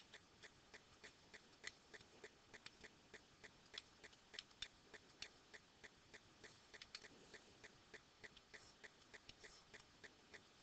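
Near silence with a faint, even ticking, about four ticks a second.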